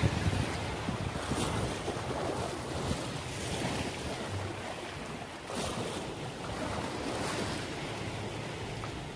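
Sea waves washing against the shore and wind buffeting the microphone, a steady rushing noise with a few brief higher hisses.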